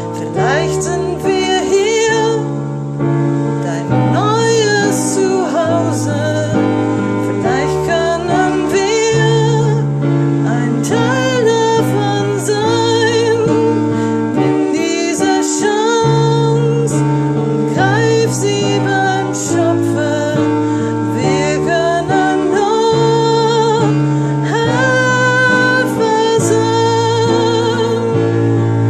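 A woman singing a slow song with strong vibrato over sustained accompaniment chords that change about every two seconds.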